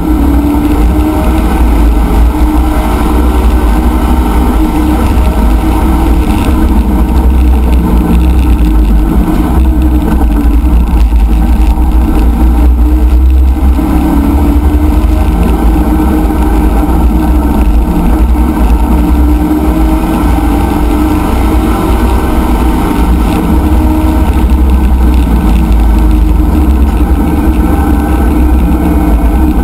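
C5 Corvette race car's V8 engine running hard at track speed, heard from inside the stripped cabin over a heavy low rumble, its pitch rising and falling a little with the throttle.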